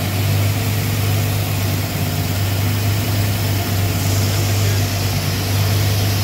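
GM LS V8 engine running steadily on an engine dyno, holding one even speed with no revving.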